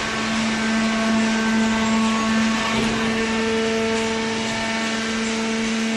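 Paper and cardboard baler running, a steady machine hum with a constant whining tone.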